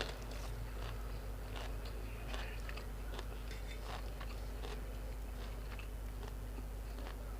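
Close-up mouth sounds of a person chewing grilled pork and sticky rice, with scattered small wet clicks and soft crunches, over a faint steady low hum.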